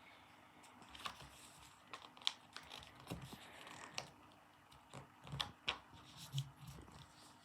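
Sheet of paper being folded and creased by hand: irregular crisp rustles and sharp crackles.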